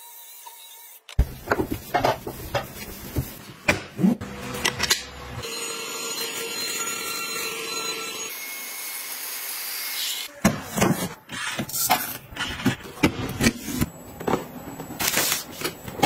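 A cordless electric spin scrubber's motor running against a steel tray. After a sudden change, a run of sharp clicks and knocks plays over a low, steady hum, then a stretch of steady hiss, then more clicks and scraping.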